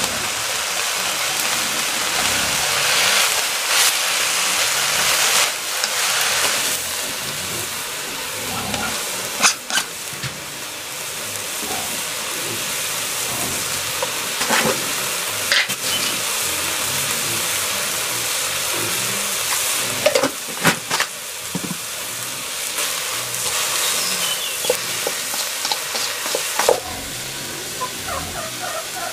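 Leafy greens sizzling in a hot steel wok as they are stir-fried, a steady hiss broken now and then by sharp clacks and scrapes of the spatula against the metal.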